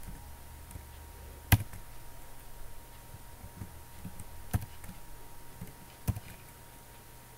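Three isolated sharp key clicks on a laptop keyboard, about a second and a half, four and a half and six seconds in, the first the loudest, over a faint steady hum.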